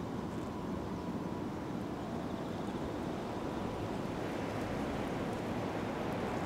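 Steady low outdoor background rumble with no distinct events; the cats make no clearly audible sound.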